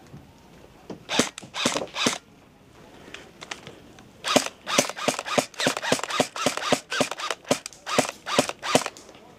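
Airsoft guns firing single shots in quick succession: a few shots about a second in, then a longer, irregular run of sharp cracks from about four seconds in.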